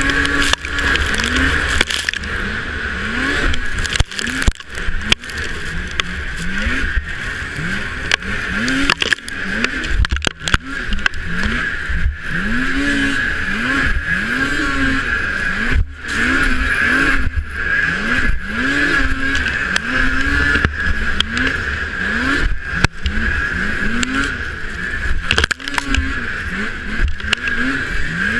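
Race snowmobile's two-stroke engine heard from the rider's own sled, revving up and dropping back over and over, about once a second, as the rider throttles through a snowcross course. A steady high whine runs underneath, with frequent knocks and wind buffeting on the microphone.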